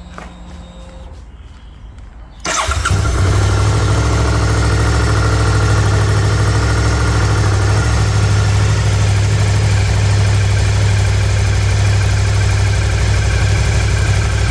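Suzuki V-Strom 650 XT's 645 cc V-twin engine started about two seconds in, catching at once and settling into a steady idle. This is the first start on fresh oil and a new oil filter, with the engine drawing oil into the filter.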